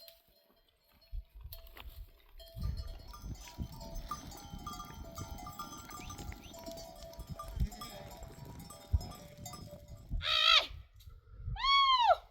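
Bells on a grazing sheep flock clinking on and off as the animals move, followed by two loud bleats near the end.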